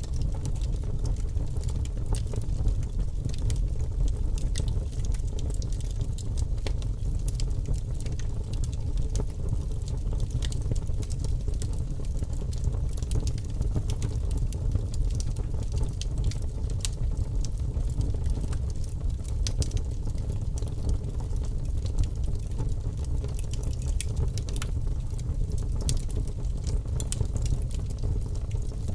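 Steady low rumble with many small crackles and pops scattered throughout.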